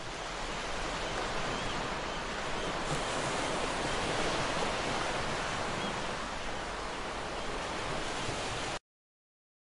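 Small waves washing over wet sand at the water's edge: a steady rush of surf that cuts off abruptly near the end.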